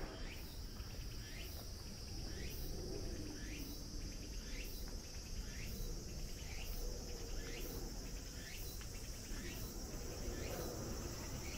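Insects droning steadily at a high pitch, with a short chirp repeating about once a second, over a low outdoor rumble.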